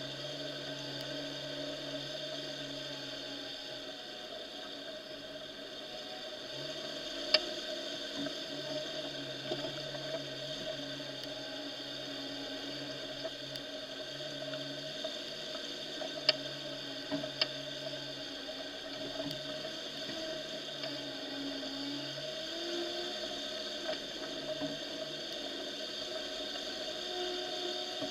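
Off-road vehicle engine running steadily while driving slowly over a muddy track, with a low hum that cuts in and out. A few sharp knocks stand out: one about seven seconds in and two close together about nine seconds later.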